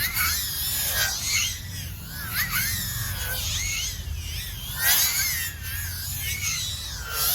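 Tiny whoop drone's 1S brushless motors whining in flight, the pitch swooping up and down every half second or so with the throttle.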